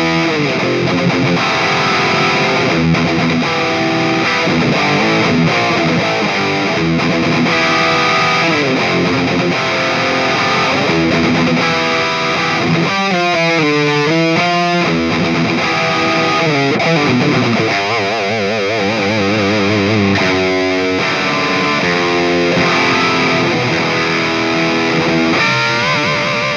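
Electric guitar playing distorted high-gain riffs through the Flatsons KE1 multi-effects pedal's ENGL Powerball amp model. A wavering vibrato passage comes about 18 seconds in.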